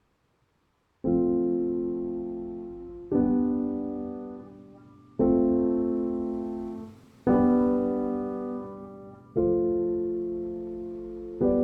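Slow, calm piano music: after about a second of silence, sustained chords are struck roughly every two seconds, each left to ring and fade.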